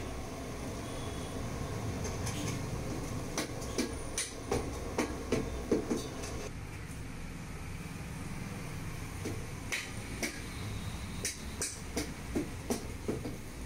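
Light, irregular clicks and taps from hands picking small balls of cashew dough off a wooden board and pressing them onto a ball of sweet, in two runs of several taps each. Under them runs a steady low background rumble.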